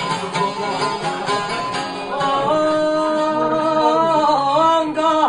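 Long-necked lute plucked in a busy instrumental passage, then from about two seconds in a man's voice enters with long, drawn-out, wavering sung notes over the lute, in the style of an Albanian epic song.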